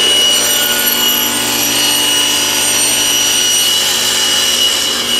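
Table saw running steadily with a constant high whine, its blade ripping a glued-up cherry and maple chopstick blank fed on a sled.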